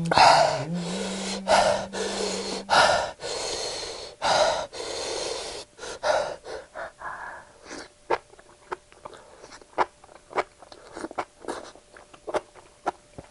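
Heavy hissing breaths in and out, the sound of someone suffering from very spicy food. From about halfway there is a run of short wet mouth clicks as spicy enoki mushrooms are chewed.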